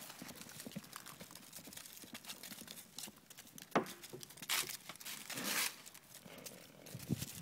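Horses galloping across a grass pasture, their hooves a run of soft irregular thuds, with louder rustling bursts close to the microphone a little past the middle.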